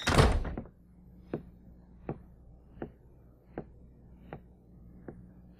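A door shutting with a thud at the start. Then a clock ticking steadily, about once every three-quarters of a second.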